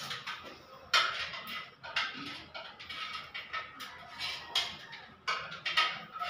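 Insulated electrical wires being pulled by hand through a conduit and out of a wall switch box, giving irregular short scrapes and squeaks as they rub along the box edge; the loudest comes about a second in.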